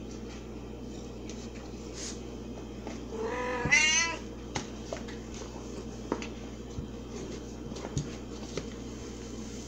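Domestic tabby cat giving one meow of about a second, a little over three seconds in, followed by a few faint clicks over a steady low hum.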